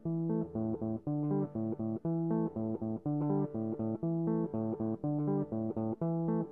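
Background music: a repeating riff of short plucked guitar and bass notes at a steady, even pace.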